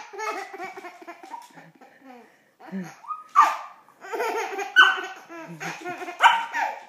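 Baby laughing in several separate bursts of giggles and squeals.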